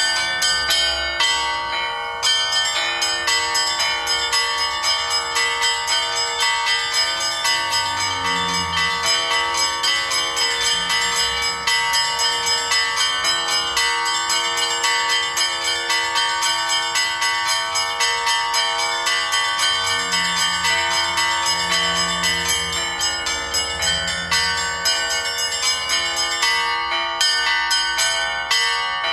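Bells ringing in a steady, even succession of strikes, about three a second.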